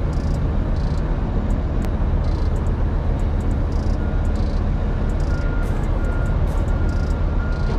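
Heavy diesel machinery running steadily at a loading yard: a large forklift working next to the flatbed, along with the truck's idling engine. About halfway through, a faint intermittent beeping starts, typical of a backing-up alarm.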